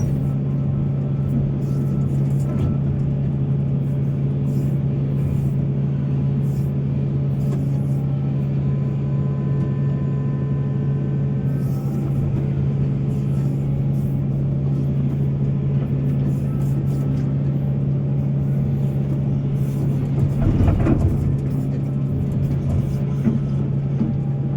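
Heavy diesel engine of a mining excavator running steadily with a deep, even drone, with a brief louder rumble about twenty seconds in.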